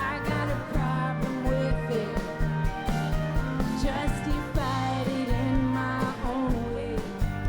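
Live indie rock band playing a song, with a steady drumbeat under bass and guitars, heard through a concert PA.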